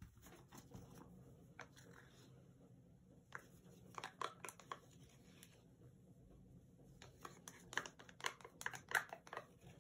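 Faint crinkling and clicking of a plastic paint cup handled in gloved hands while paint is poured, in small clusters about four seconds in and again near the end, over a low steady hum.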